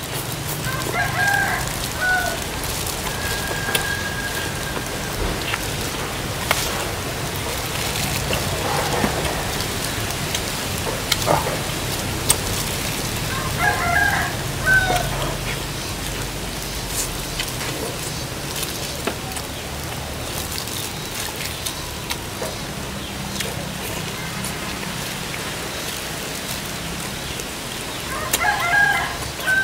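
A rooster crowing three times: about a second in, about halfway through, and again near the end, over steady background noise with scattered faint clicks.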